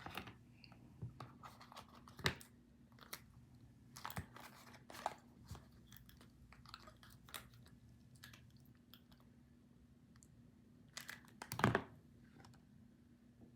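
Close handling noises: irregular small clicks and crinkles, with a sharper knock about two seconds in and a louder cluster near the end, over a faint steady hum.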